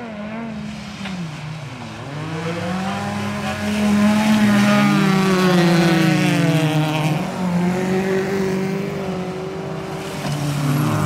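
Several folkrace cars' engines revving hard, their pitch climbing and dropping through throttle and gear changes, loudest about halfway through as the cars power through a bend.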